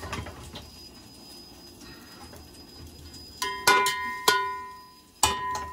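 Metal slotted spoon tapping against the rim of a large metal cooking pot while rice is spooned in: about four sharp knocks in the second half, each leaving the pot ringing, with soft handling of the rice in between.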